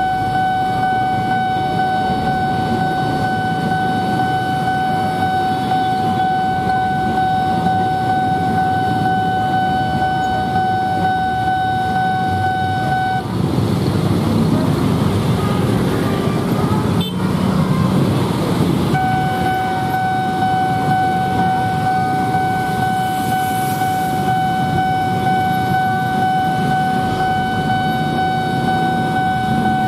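Railway level-crossing warning alarm sounding as one steady high tone over the low running noise of a crowd of idling motorcycles. The tone breaks off about 13 seconds in for some six seconds, while the traffic rumble grows louder, then starts again.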